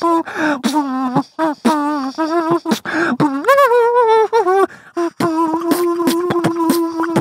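A kazoo played with the nose: a buzzing tune of short, wavering notes broken by brief gaps, ending on a long held note about five seconds in.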